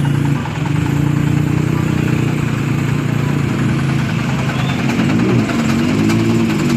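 Chainsaw engine idling steadily, then rising and falling briefly in pitch about five seconds in.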